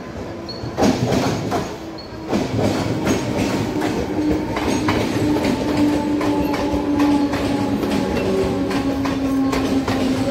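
Mumbai suburban EMU local train running past close by, its wheels clattering over the rail joints with a steady whine. The clatter comes in loudly about a second in.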